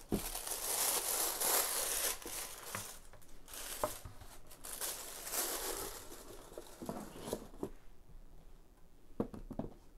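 Tissue paper rustling and crinkling as hands pull it about inside a shoebox. It is loudest over the first six seconds and then fades, with a few light knocks of the box being handled near the end.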